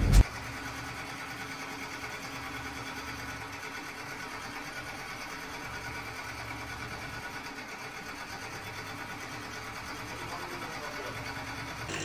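Ford Ranger 3.2 five-cylinder turbodiesel idling with a fast, even injector clatter. The engine has a misfire ('missing') from an injector that is not working.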